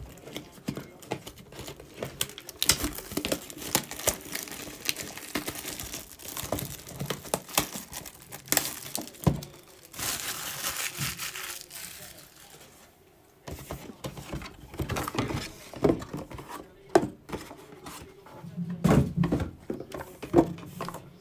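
Plastic seal wrap being torn off a trading-card box and crumpled, in crackling, crinkling bursts with a short pause about two-thirds of the way through.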